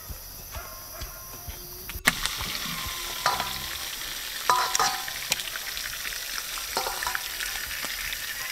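Crayfish being cleaned with a knife over bowls: scattered clicks, scrapes and short clinks over a steady high hiss, starting after a cut about two seconds in.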